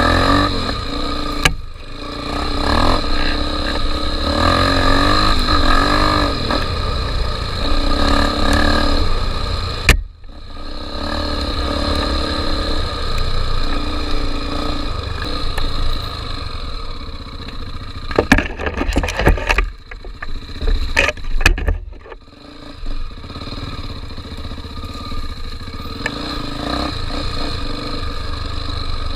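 Off-road motorcycle engine running and revving up and down on a trail ride, with brief dropouts and a stretch of rattling knocks about two-thirds of the way through.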